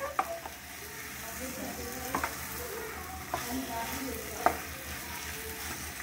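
Quail pieces frying in masala and oil in a kadai as a spatula stirs them, with a steady sizzle and a few sharp knocks of the spatula against the pan, the loudest about four and a half seconds in.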